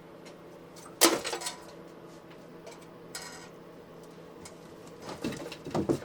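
A sharp knock about a second in, a short scrape a little later, and two more knocks near the end.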